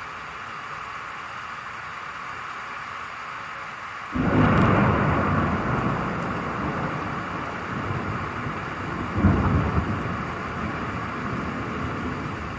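Steady rain hiss, then a thunderclap breaks suddenly about four seconds in and rolls on as a long rumble, with a second loud crack a little after nine seconds before it slowly dies away.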